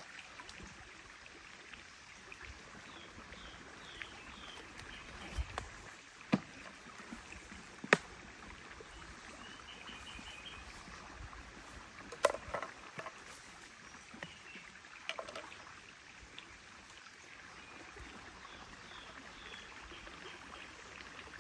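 Faint outdoor ambience with a few short bird chirps, broken by four sharp clicks and knocks from handling, the loudest two in the first half.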